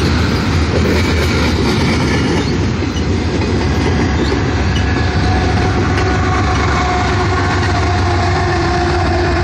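Container train's railcars rolling past on the rails, a loud steady rumble, with a faint thin tone coming in about halfway through.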